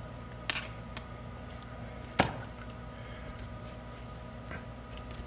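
Light metallic clicks of a test-light probe and crocodile clips being handled and touched together, the sharpest about two seconds in, over a steady low electrical hum.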